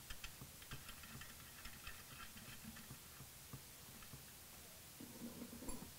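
Faint, scattered light clicks and ticks of cylinder hold-down studs being handled and threaded by hand into the engine case's stud inserts.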